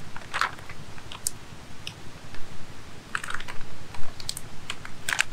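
Plastic OMEALS heating bag being handled and pressed shut: an irregular scattering of sharp crinkles and clicks.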